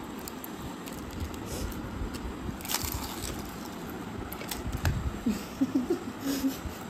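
Gol gappe (crisp hollow puris) being cracked, dipped in pani and eaten: scattered crunches and clicks with wet chewing and squishing. A few short hums from a voice come about five seconds in.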